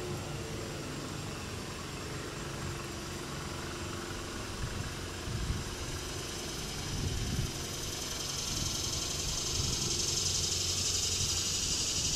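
A steady low rumble, with a high insect drone swelling in about two-thirds of the way through.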